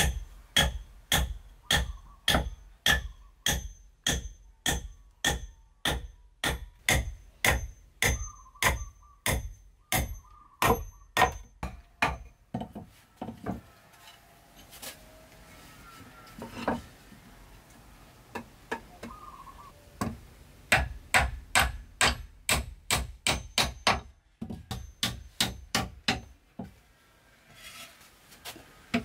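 Repeated hammer strikes on wood, about two a second, with a slight ring to each blow. They pause for several seconds in the middle, with only faint scraping and knocks, then start again.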